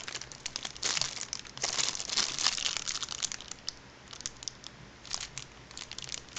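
Small clear plastic bag crinkling as hands squeeze and turn it, with a charger plug adapter inside. The crinkling is busiest for the first three seconds, then thins to scattered crackles.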